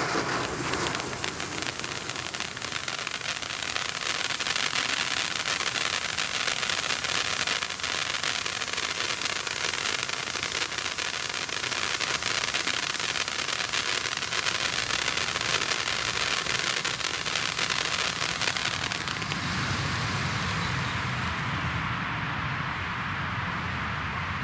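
Two Jorge JF02 firework fountains, one red and one blue, burning side by side: a steady, loud hissing rush of sparks with a fine crackle. Near the end the high hiss thins as the fountains burn down, and the sound cuts off suddenly.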